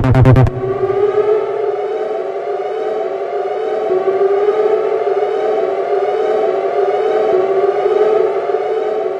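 A pulsing electronic beat cuts off half a second in, and a long siren wail takes over, holding roughly one pitch with a slight waver, as a sound-design layer of a film score.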